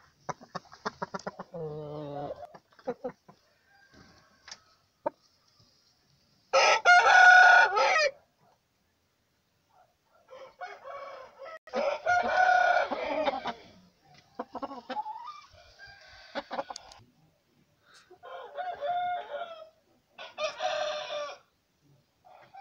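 Game roosters crowing several times in a row, the loudest crow about a third of the way in, with short clucks near the start.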